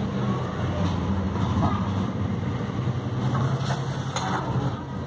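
A steady low hum, with a few light taps and scrapes of a steel ruler and pen being moved about on paper, the clearest a little before the end.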